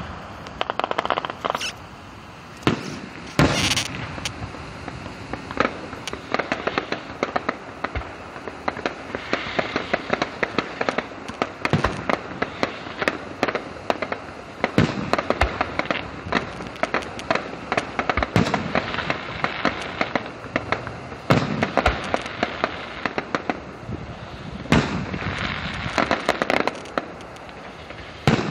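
Aerial fireworks display: shell bursts go off as sharp bangs every second or two, some much louder than others, between stretches of dense rapid crackling.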